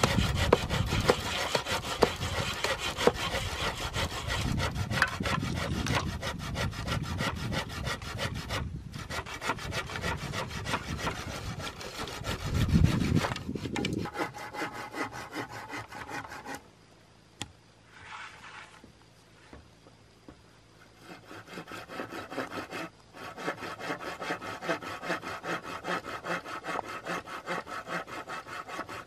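Hand saw cutting through green bamboo in fast, even back-and-forth strokes, with a short, loud low rumble just before halfway. The sawing then turns quieter, stops for a few seconds, and starts again for the last few seconds.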